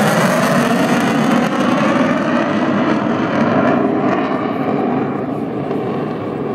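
F-16 fighter jet's engine roar, fading as the jet moves away. The high hiss dies off first, leaving a lower rumble near the end.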